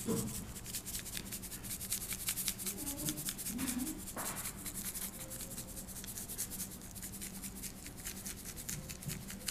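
Seasoning shaker shaken over raw fish fillets: rapid, fairly quiet dry rattling ticks of the granules.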